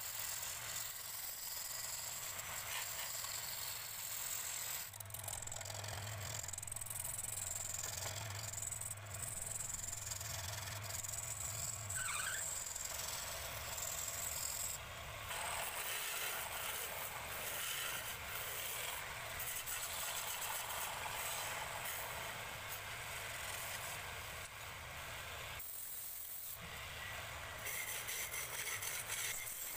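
Wood lathe running while a hand-held turning tool cuts the outside of a spinning wooden bowl: a steady hissing scrape of shavings coming off over the low hum of the lathe, with brief pauses in the cut.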